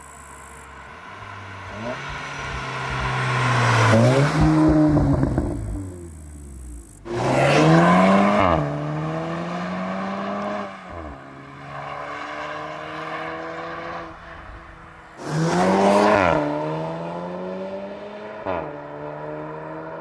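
Volkswagen T-Roc R's turbocharged 2.0-litre four-cylinder accelerating hard past the roadside, its note climbing and then dropping back several times as the gearbox shifts up. It swells to its loudest three times, as the car comes close.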